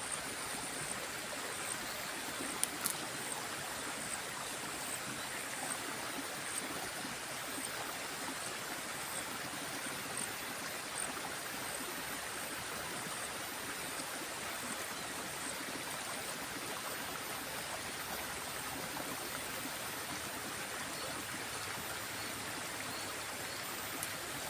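Water of a small river flowing steadily, an even rushing noise, with a faint click or two about three seconds in.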